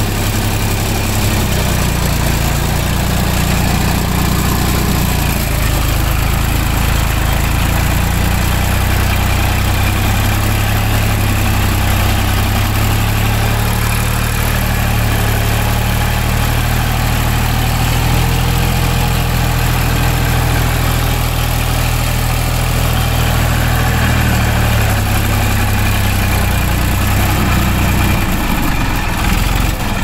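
Massey Ferguson 241 tractor's three-cylinder diesel engine running steadily while pulling an earth scraper loaded with sand, a low drone heard from the driver's seat. Its note shifts slightly about five seconds in and again near the end.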